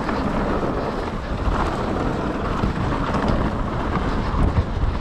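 Wind rushing over a mountain biker's camera microphone during a ride, over a steady low rumble from the bike running on the trail, with a few faint knocks near the end.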